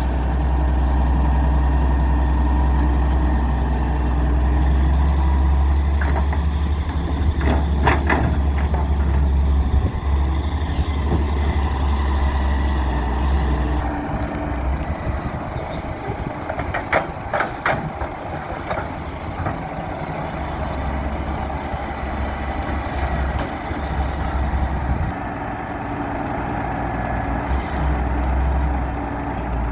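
Diesel engine of a wheeled excavator running steadily under work, its low hum easing about halfway through. Sharp metallic knocks come about 8 seconds in and again around 17 to 18 seconds in.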